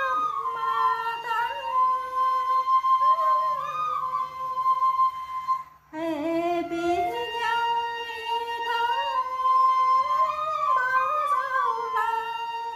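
A woman singing a Tày-Nùng sli folk song in long, drawn-out high notes with wavering ornaments. About halfway through, the line breaks off briefly and starts again with a rising slide.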